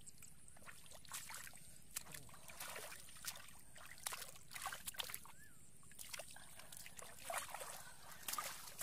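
Hands sloshing and splashing through shallow muddy water in short, irregular bursts while groping for fish.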